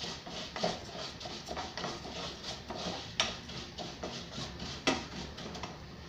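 Wooden spoon scraping and knocking against a pot as vermicelli noodles are stirred in hot oil, over a steady sizzle of frying. Three louder knocks stand out, and the stirring stops near the end.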